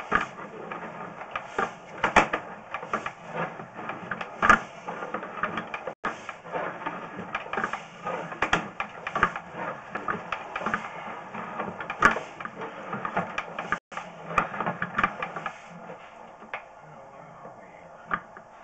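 Sewer inspection camera's push cable being fed down a drain pipe, with irregular clicking and rattling as it runs.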